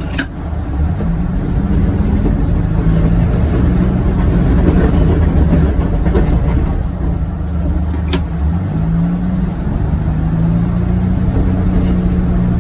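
2021 John Deere Gator XUV835M utility vehicle running under way, its engine speed rising and falling slightly. Two brief clicks, one near the start and one about eight seconds in.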